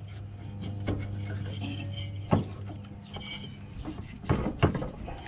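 Metal parts being handled while a belt is worked onto a lawn tractor's double-stack pulley: a few metallic clinks and knocks, one about two seconds in and two near the end, over a low steady hum.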